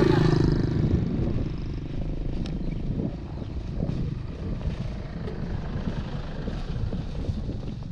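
Motor vehicle on a dirt road: engine running with a steady low rumble and tyre noise as an SUV drives past close by.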